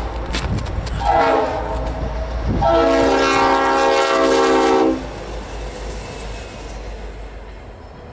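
Norfolk Southern diesel locomotive's multi-chime air horn sounding a short blast about a second in, then a long blast of a few seconds, the close of the long-long-short-long grade-crossing signal. After the horn stops, the train runs on with a fading rumble of wheels on rail.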